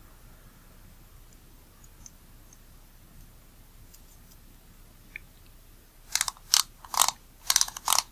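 Small metal parts of a Nikkor 28mm f/2.8D lens being handled during reassembly: a few faint ticks, then a quick run of about five sharp clicks about six seconds in.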